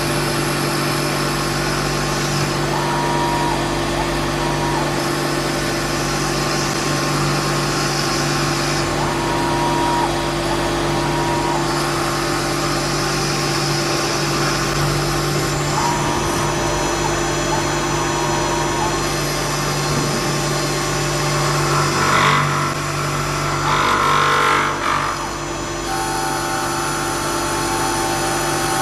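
CNC wood lathe running its automatic cycle on turkey call mouthpieces: a steady motor hum, with short whines of the axis motors repeating in pairs every six or seven seconds. A louder stretch of cutting noise comes about three quarters of the way through.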